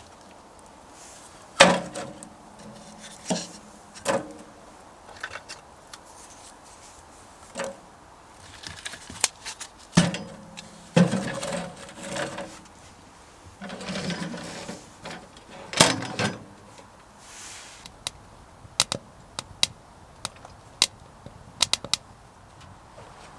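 Dishes being washed by hand: plates, a pan and utensils knocking and clinking, some with a brief ring, followed by a quick run of light sharp clicks near the end.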